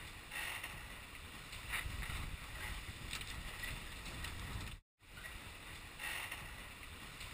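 Wind on the microphone and water rushing past the hull of a sailing catamaran under way, a steady rushing noise. It cuts out briefly about five seconds in.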